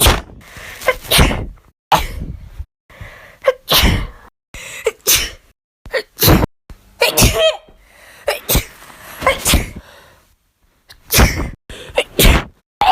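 A person sneezing again and again: about ten short, sharp sneezes in quick succession, with abrupt cuts between them.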